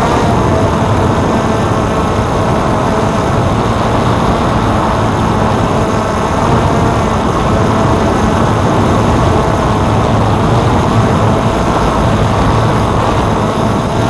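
DJI F550 hexacopter's six electric motors and propellers running steadily in flight: an even, loud whirring drone with a faint constant hum beneath it.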